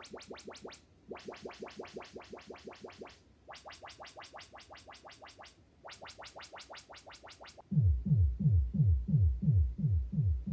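Bose Smart Soundbar 900 playing its ADAPTiQ room-calibration test signals, by which it measures the room's acoustics. Four groups of rapid, crisp ticks come first, about eight a second, each group lasting around two seconds with short gaps between. About eight seconds in, a louder run of deep falling bass sweeps follows, about three or four a second.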